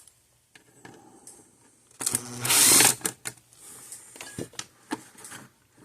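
A small power screwdriver with a Robertson bit whirs for about a second, backing a screw out of a circuit board. Faint handling noise before it and a few light clicks after it.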